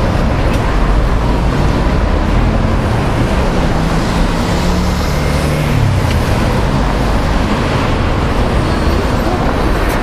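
Steady city road traffic: cars and taxis driving through a busy intersection, with one vehicle's engine note dropping in pitch as it passes about five to six seconds in.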